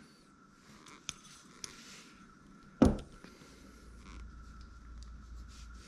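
Quiet handling of a Shimano Stella SW 30000 spinning reel: a couple of faint clicks, then one sharp click about three seconds in.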